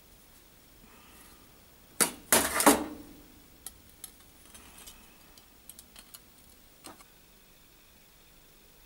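Metal clattering as a heavy steel clamp is set onto a thin steel strip lying on a steel grating, loudest about two to three seconds in, followed by a few light metallic clicks and taps as the piece is handled.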